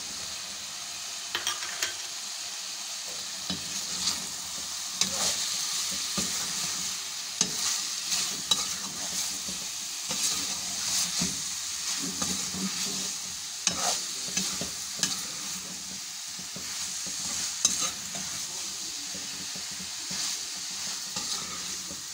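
Chicken pieces frying in a pan, sizzling steadily while a slotted spatula stirs and scrapes them around, with occasional knocks of the spatula against the pan.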